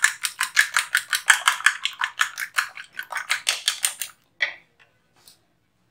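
Two eggs being beaten with a metal fork in a plate, the fork clicking rapidly against the dish at about five or six strokes a second; the beating stops about four seconds in.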